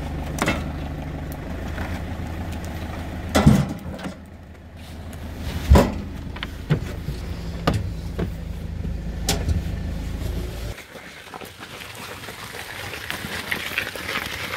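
A pickup truck's engine idling with a steady low hum, broken by two loud thumps a couple of seconds apart and a few lighter knocks; the engine sound stops abruptly about eleven seconds in.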